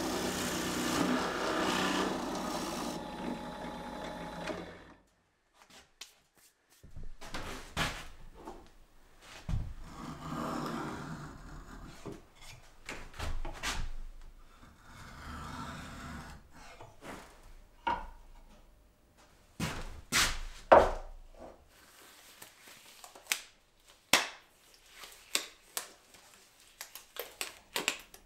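Drill press running with a Forstner bit cutting into wood, stopping abruptly about five seconds in. Then irregular clicks, knocks and short rubbing sounds from hand work on small wooden pieces, the loudest a sharp knock about two-thirds of the way through.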